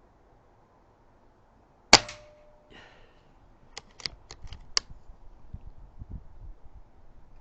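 A single shot from a Retay T20 PCP air rifle, a sharp crack about two seconds in with a short ring after it. It is followed by a run of five quick light clicks.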